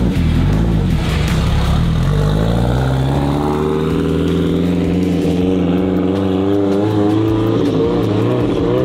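Sports car engine accelerating as the car pulls away, its note rising over a few seconds and then holding as the car moves off down the street.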